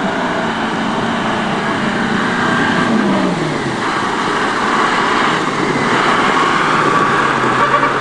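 A motor vehicle's engine running amid a steady rush of road or wind noise. The engine's pitch drops about three seconds in, then holds lower.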